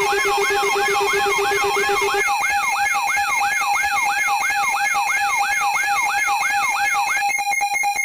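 Electronic emergency-alert alarm: a steady tone with a siren-like wail over it, sweeping up and down in pitch nearly three times a second. A lower steady tone drops out about two seconds in. Near the end the wail stops, leaving the steady tone pulsing briefly.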